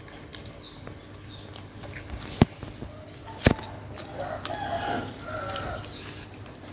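A kitten chewing on a piece of meat, with two sharp crunches about a second apart. From about four seconds in, a bird calls for roughly two seconds in broken phrases.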